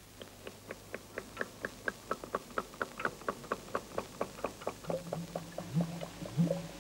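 Evenly spaced ticking, about four short pitched ticks a second. About five seconds in, a low steady hum joins it, and near the end short low rising swoops come in.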